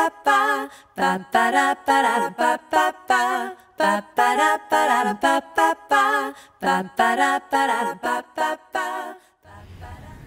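A woman singing a tune unaccompanied, in short wavering phrases with brief breaks between them. The singing stops about nine seconds in, giving way to a steady low hum.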